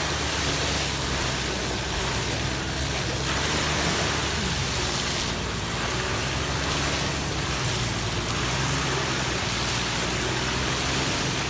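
VW Passat B5 4motion stuck in mud, its engine held at steady high revs with the wheels spinning, under an even rushing noise.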